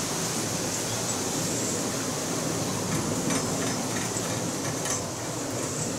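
Oil sizzling on hot mini iron plates as they are wiped with an oiled paper towel during seasoning: a steady hiss with a few faint crackles.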